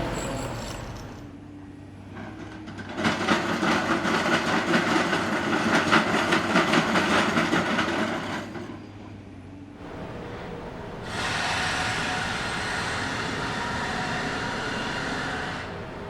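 Mechanical rattling and rumbling in two stretches: a loud, fast clatter lasting about five seconds, then after a short dip a steadier rumble with a faint hum, which drops off shortly before the end.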